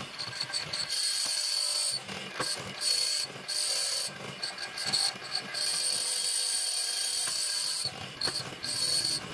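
A hollow-chisel mortising machine plunging its square chisel and auger bit into a wooden rail again and again, with knocks as it cuts. A high-pitched whine comes and goes in stretches of up to a few seconds.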